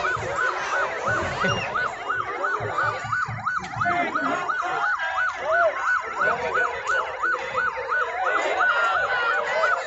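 Ambulance siren sounding in a fast yelp, its pitch rising and falling about three times a second, as it comes through a crowd.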